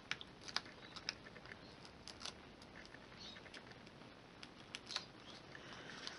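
Faint paper handling: scattered small clicks and crinkles as fingers peel the release paper off foam adhesive squares and work them onto a cardstock panel, with a soft rustle of paper near the end.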